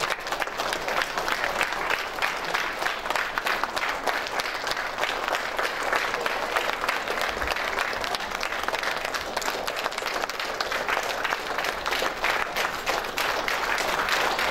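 Audience applauding steadily: many people clapping together.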